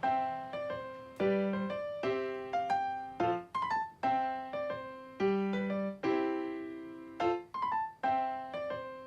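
Background music: a keyboard tune with a piano sound, struck notes and chords that each die away, a new one about every second.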